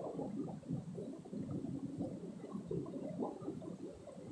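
Shallow stream water running and gurgling over rock ledges, a continuous, uneven low churning.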